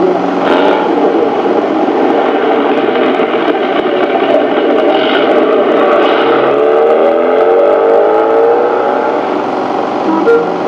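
Car engine running under load. In the second half its pitch climbs steadily for a few seconds as it accelerates. Heard on a low-fidelity old film soundtrack.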